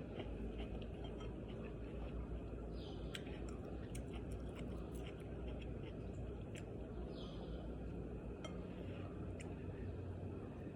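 Chewing and small clicks of eating over a steady low background rumble, with a short high chirp that repeats about every four and a half seconds.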